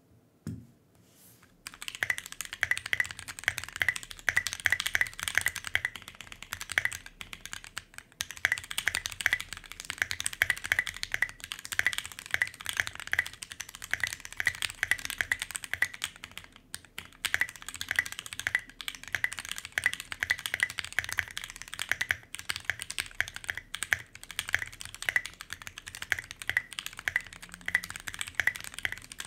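Fast typing, spacebar included, on a Tofu60 60% custom mechanical keyboard: lubed and filmed Banana Split linear switches on a brass plate, with an O-ring mod. A dense run of keystroke clicks starts about a second and a half in, with a few brief pauses.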